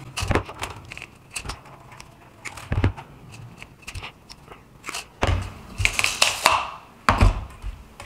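Cutting pliers snipping a stretched heater-element coil wire into pieces: a handful of sharp clicks and short crunches, with the loose coil scraping and rattling against the cutting mat between cuts.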